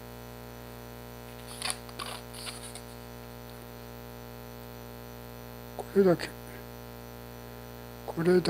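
Steady electrical mains hum, with a few brief squeaky rubs of a latex modelling balloon being handled about two seconds in.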